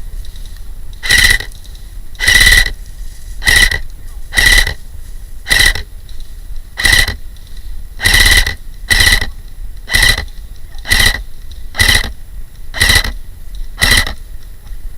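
Electronic buzzer alarm sounding harsh beeps about once a second, thirteen in all, each a short high tone. It is the kind of signal an airsoft game's reactor objective device gives off while it is being activated.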